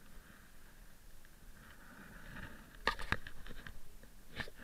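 Knocks and scrapes of a handheld action camera being handled: two sharp knocks about three seconds in, a few lighter clicks after and another knock near the end, over a faint steady hiss.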